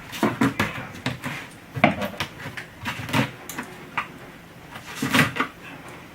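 A box being opened and its contents handled: a run of irregular rustles, taps and knocks, with louder knocks about two seconds in and about five seconds in.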